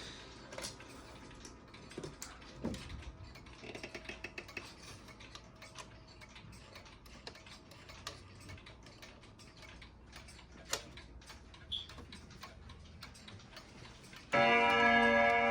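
Girod dual-chime wall clock ticking quietly. Near the end its chime starts suddenly and loudly, with several ringing tones sounding together.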